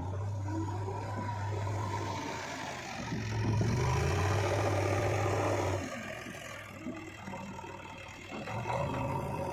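Heavy diesel engine running and revving under load. It grows louder about three seconds in, eases off about six seconds in, and picks up again near the end.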